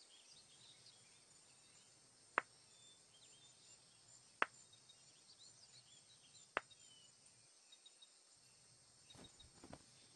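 Near silence: faint room tone with scattered thin, high chirps, broken by three sharp clicks about two seconds apart.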